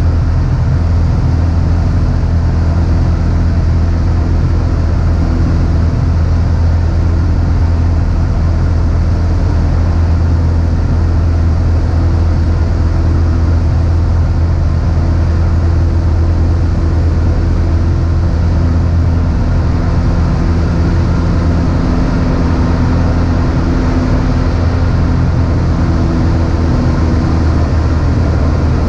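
Cessna 150's four-cylinder Continental O-200 engine and two-blade propeller droning steadily in flight, heard from inside the cabin.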